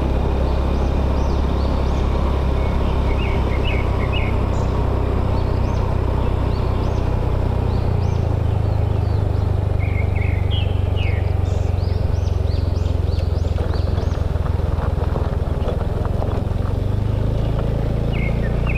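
Motorbike engine running steadily while riding, with the engine note dropping about halfway through and rising again near the end. Birds chirp repeatedly over the engine.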